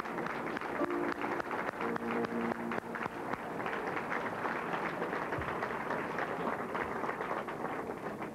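Audience applauding over the last bars of an early cartoon soundtrack's music; the music stops about three seconds in and the applause carries on.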